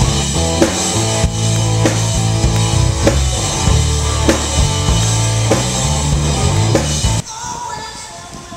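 Live rock band playing: electric guitars over a drum kit keeping a steady beat. The music cuts off abruptly about seven seconds in, leaving faint background noise.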